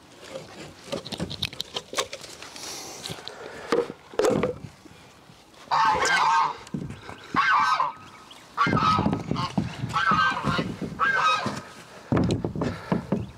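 Geese honking: about six loud calls in the second half. Before them come a few knocks as a plywood sheet is set against a wooden wall frame.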